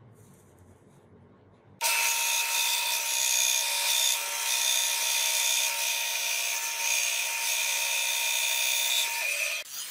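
Bench band saw with a vertical blade running and cutting a brass bar along a marked line: a steady high whine over a rasping hiss. It starts abruptly about two seconds in and stops just before the end.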